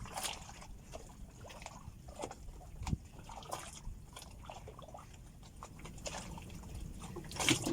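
Water trickling and sloshing against a small fishing boat, with scattered small drips and knocks.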